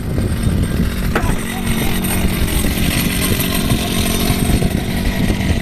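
A small engine running steadily at an even pitch, with a single sharp click about a second in.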